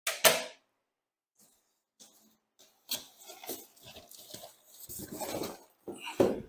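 A sharp clack just after the start, then cardboard box flaps and packaging rustling and scraping, with scattered knocks, as a tinted folding golf-cart windshield is slid out of its shipping box; a heavier thump comes near the end.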